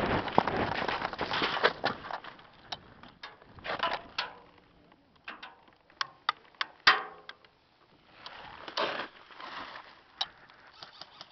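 Movement noise from a gun-mounted camera as an airsoft player moves off: rustling and scuffing for the first two seconds, then irregular clicks and knocks of gear and handling.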